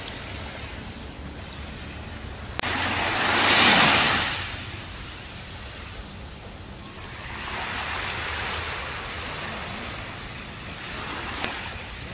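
Small waves washing in on a sandy beach: a hiss of surf that swells and fades, loudest about three to four seconds in, with a gentler wash a few seconds later.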